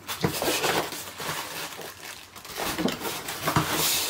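Plastic bag and packing wrap crinkling and rustling as it is handled and pulled out of a cardboard box, in irregular bursts that grow denser near the end.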